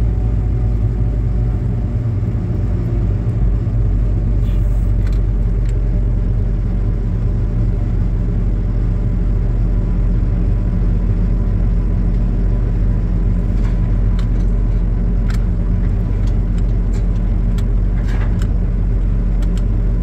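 John Deere 2154D log loader's diesel engine running steadily, heard from inside the cab while the machine is being operated. Occasional light clicks come through over the engine, a few about four to six seconds in and more in the last several seconds.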